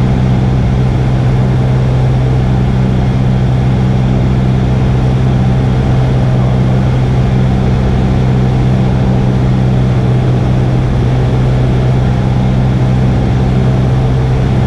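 Cessna 172R's four-cylinder Lycoming engine running steadily in flight, with its propeller turning, heard from inside the cabin as a loud, even drone.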